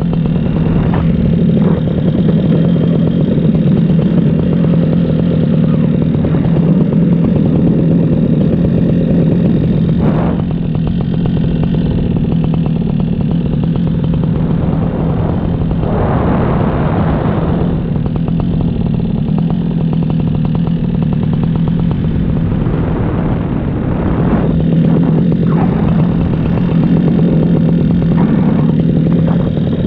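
Paramotor engine and propeller running steadily in flight, holding one even pitch, with a louder rush of noise for a couple of seconds around the middle.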